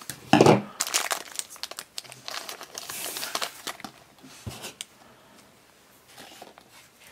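Thin clear plastic blind bag crinkling and rustling in the hands as a small toy figure is taken out of it. The crinkling is busiest in the first four seconds and dies down after about five.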